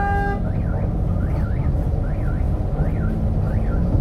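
An electronic siren whoops up and down about twice a second over the steady rumble of a moving bus's engine and road noise. A held vehicle horn cuts off just after the start.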